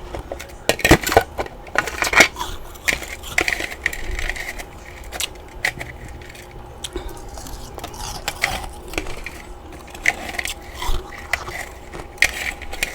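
Someone biting and chewing massive chunks of freezer frost: irregular loud crunches and crackles, several bites in quick succession.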